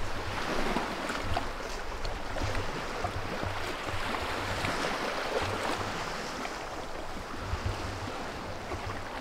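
Small waves lapping and washing against the rocky lakeshore, with wind buffeting the microphone in a low, gusty rumble.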